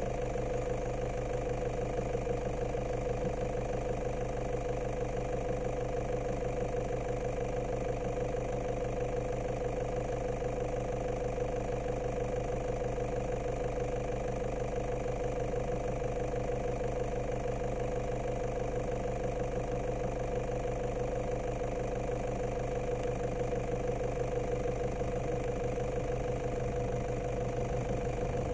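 A motor running at a steady, unchanging speed: a constant mechanical hum that holds one pitch throughout.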